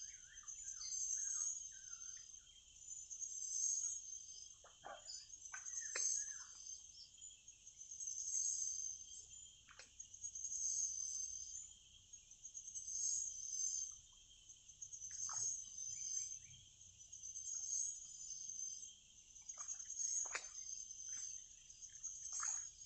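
Steady high-pitched insect chorus that swells and fades about every two seconds, with a few short chirps and clicks over it.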